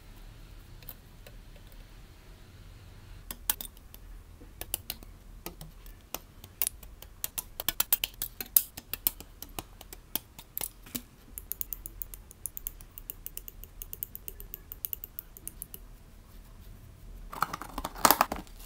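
Plastic model-kit runners being handled, clicking and ticking sharply many times as the parts knock together. Near the end comes a short, louder rattle from a clear plastic tub full of small plastic offcuts.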